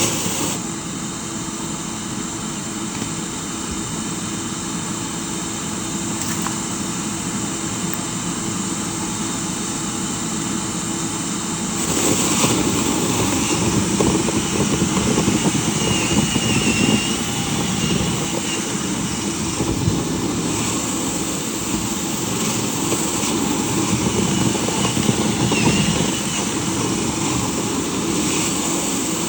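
Dryer vent cleaning equipment running steadily with a motor whine. About twelve seconds in it gets louder and rougher.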